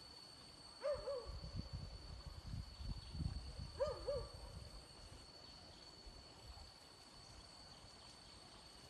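A short two-note hooting call, heard twice about three seconds apart, over low rumbling handling noise and a steady high-pitched insect drone.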